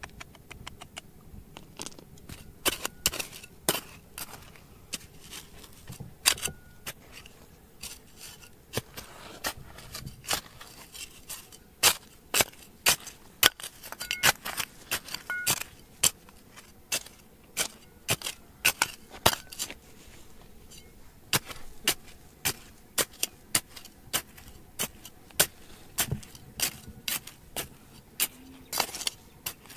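Irregular sharp metallic clicks and knocks, about one or two a second, a few with a brief ring.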